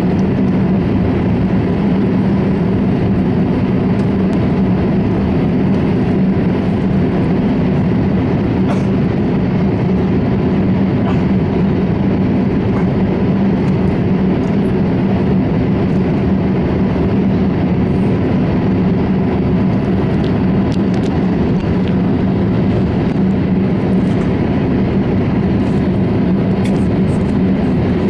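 Jet airliner cabin noise at cruise: engines and airflow make a loud, steady drone with a low hum running through it.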